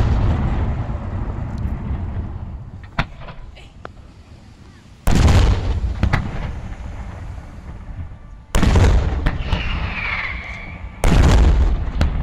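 Aerial firework shells bursting: three heavy booms about three seconds apart, each followed by a long fading rumble. A few smaller cracks come a few seconds in, and the tail of an earlier boom is dying away at the start.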